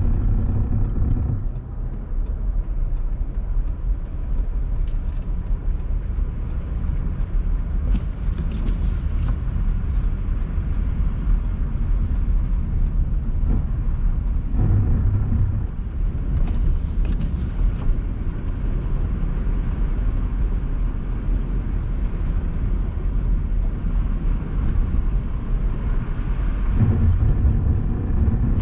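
Car driving along a road: a steady low rumble of engine and tyre noise, swelling briefly a few times.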